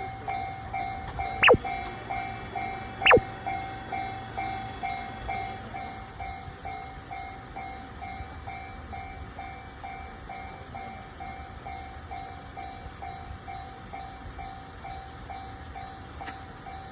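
Japanese railway level-crossing warning bell ringing: a steady, quick repeating ding, about two and a half a second. Two loud sharp clicks cut in a second and a half apart near the start.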